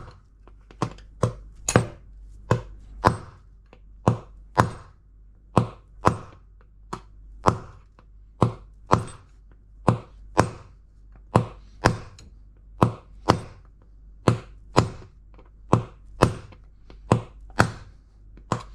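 Repeated metal hammer blows, about one and a half a second, driving the old rusted drum bearing out of an LG washing machine's tub by striking its inner race.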